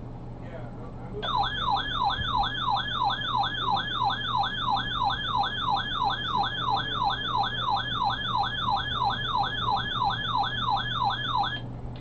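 Weather radio receiver's electronic alert siren: a rapid falling yelp that repeats about three times a second, starting about a second in and cutting off just before the end, over a steady low hum. It signals an incoming NOAA Weather Radio alert, here a severe weather statement.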